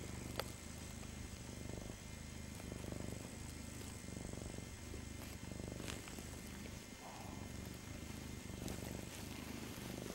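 Domestic cat purring close to the microphone: a steady low rumble that swells and fades with its breathing. A brief sharp click sounds about half a second in.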